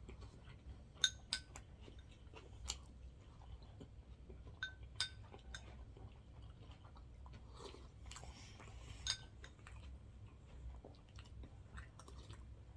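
Close-miked chewing of sushi, with several sharp clicks of utensils against a dish, each ringing briefly.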